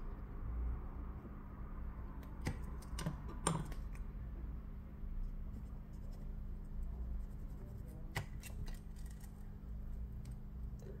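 Thin plastic pick, wetted with isopropyl alcohol, sliding along the glued edge of a Samsung Galaxy S24 Ultra's back cover to cut the adhesive: faint scraping, with a few sharp clicks around three seconds in and another near eight seconds, over a steady low hum.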